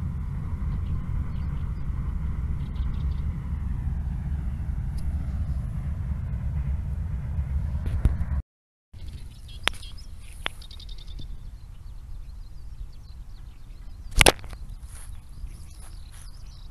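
Wind rumbling on the microphone in an open field. After a cut, a quieter outdoor background with a few sharp clicks, one much louder about two-thirds of the way through, and faint bird chirps at the very end.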